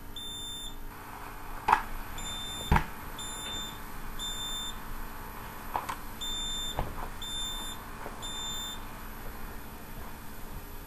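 Smoke alarm sounding: short, high-pitched beeps in repeated groups with short pauses between, stopping about nine seconds in. A few sharp knocks sound alongside, the loudest two about two and three seconds in.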